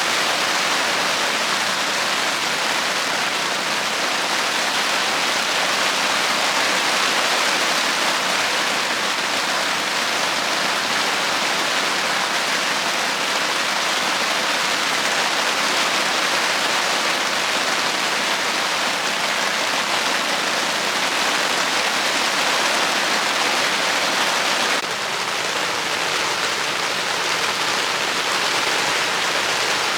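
Heavy rain from a thunderstorm pouring down steadily, a dense even hiss, easing slightly about 25 seconds in.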